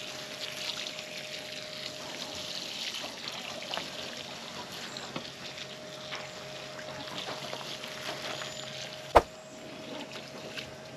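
Water from a pump-fed garden hose pouring and splashing onto the soil of a raised garden bed, with a faint steady whine underneath. A single sharp knock sounds about nine seconds in.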